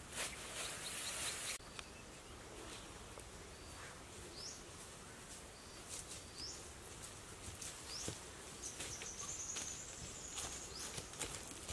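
Grass rustling as a clump of sod is handled, cutting off about a second and a half in. Then quiet forest ambience with a few short bird chirps and one longer warbling call, and footsteps rustling through leaf litter toward the end.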